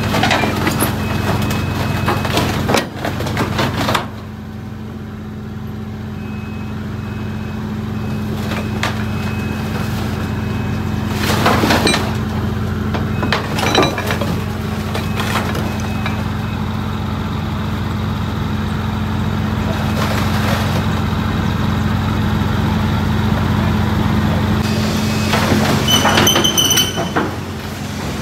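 Flatbed truck's diesel engine idling steadily, with a few knocks and handling noises over it.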